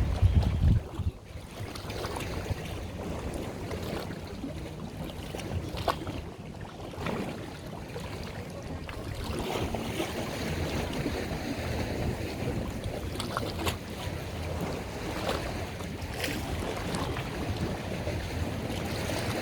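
A small boat's motor runs with a steady low rumble, with water washing along the hull and wind buffeting the microphone; the wind is strongest in the first second.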